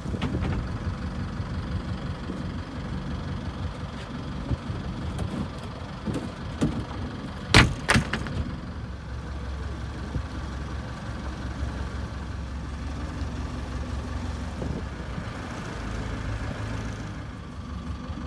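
Boat engine running steadily at low speed, a low even hum, with two sharp knocks about half a second apart near the middle.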